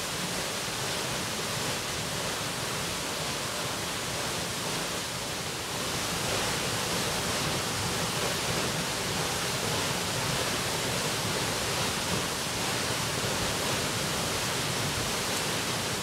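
Steady rushing of a waterfall plunging into its pool, an even wash of water noise that fades out at the very end.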